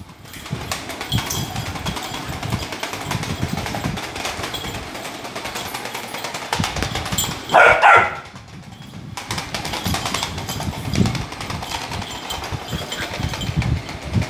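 A puppy barks once, sharply, about halfway through, over a steady rattling buzz from a battery-powered light-up toy ball on the hard floor.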